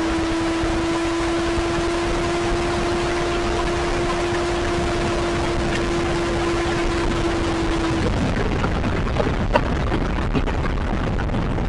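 Steady vehicle noise, a continuous rush with a steady hum that cuts off abruptly about eight seconds in.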